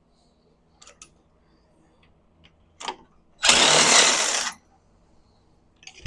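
A few light clicks of tools being handled, then a loud rushing, whirring burst about a second long from a tool, a little over three seconds in.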